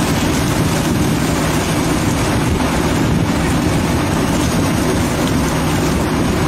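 A fishing trawler's engine and deck machinery running with a steady, loud drone, with an even rushing noise over it.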